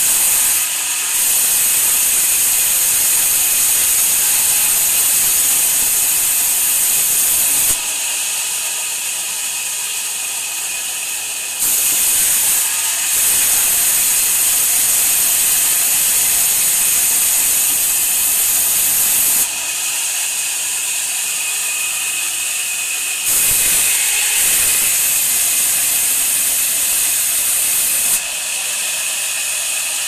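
Large sawmill band saw ripping a timber plank lengthwise: a steady, loud hissing rasp of the blade running through the wood. It steps louder and quieter three times, each loud stretch lasting several seconds.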